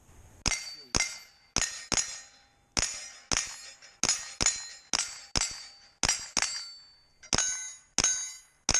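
A rapid string of about sixteen rifle shots, roughly two a second, each followed by the ring of a struck steel plate, with a brief pause about seven seconds in.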